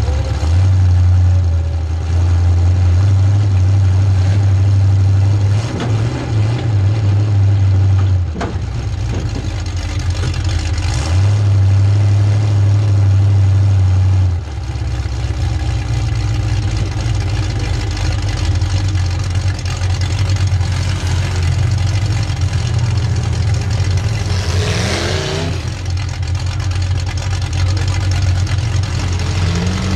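Demolition derby car's engine heard from inside the stripped cab, running hard under throttle in stretches and easing off between them as the car drives. One brief rising sweep in pitch late on.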